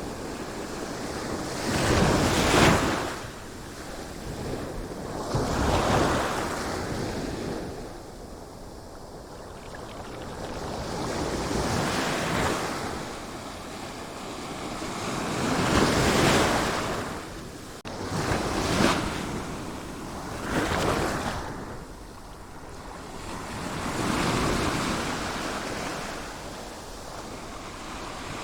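Sea waves surging and falling away, seven swells at irregular intervals of a few seconds each.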